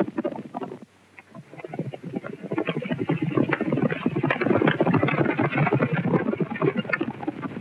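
Horses galloping, a fast, dense clatter of hooves. It drops away briefly about a second in, then builds back up and runs on loud.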